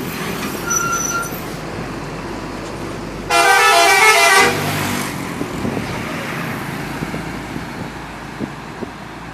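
A bus's multi-tone musical 'telolet' horn sounds one short burst a little over three seconds in, lasting just over a second, over steady road traffic and engine noise.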